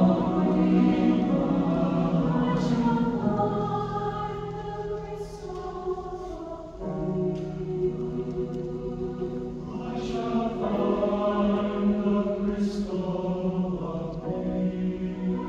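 Mixed-voice choir singing sustained chords with grand piano accompaniment. The sound thins and quietens a few seconds in, then the full choir comes back in with a new phrase a little before seven seconds in.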